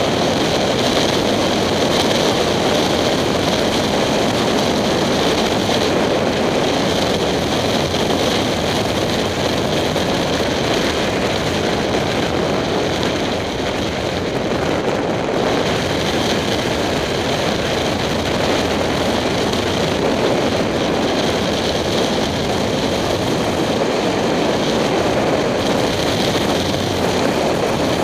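Steady wind rush on a helmet-mounted camera at road speed on a 2007 Kawasaki Ninja 250, mixed with the motorcycle's engine and road noise, easing a little about halfway.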